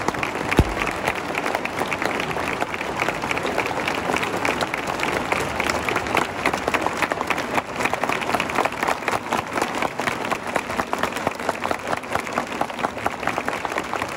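Football crowd in the stands clapping, many hands together over a general hubbub of voices. A single low thump comes about half a second in.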